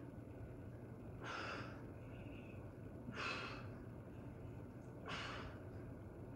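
A man breathing hard through a strenuous static hold with his legs raised, after dips. There are three forceful breaths about two seconds apart.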